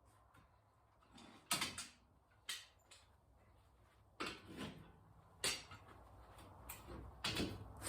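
Brake caliper being worked off the front rotor of a 2010 Chevrolet Cobalt: about five short metal clunks and scrapes spread over several seconds as the caliper and pads are handled.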